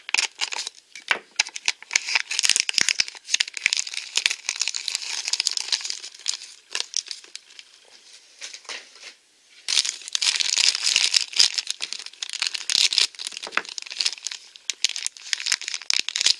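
Plastic blind-bag packaging crinkling and tearing as a Num Noms pouch is cut open and handled, then, after a lull of about two seconds, an inner purple plastic wrapper crinkling as it is peeled off the small toy.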